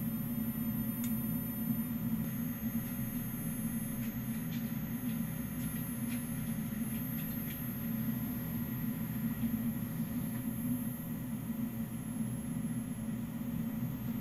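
Steady low hum throughout, with a few faint clicks in the first half as the small 21-pin decoder board is handled and seated on its plug.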